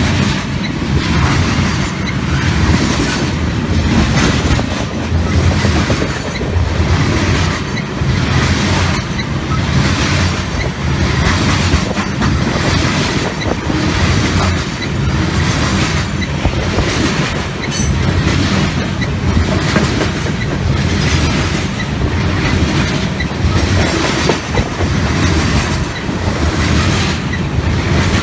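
A freight train of open-top coal cars rolling past close by. Steel wheels run on the rails with a steady rumble and a regular, rhythmic clickety-clack as the wheelsets cross the rail joints.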